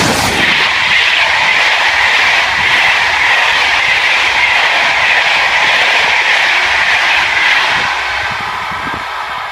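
SNCF BB 7200 electric locomotive hauling Téoz passenger coaches, passing close by: a loud rush as the locomotive goes past right at the start, then a steady hiss of the coaches' wheels on the rails, easing off near the end as the train draws away.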